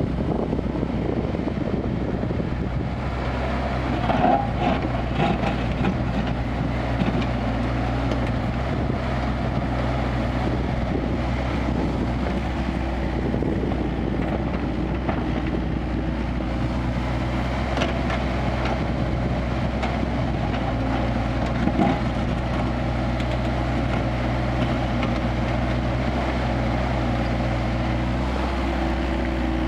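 Kubota KX161-3 mini excavator's diesel engine running steadily while it works, with a few short knocks, the loudest about four seconds in and again past the middle.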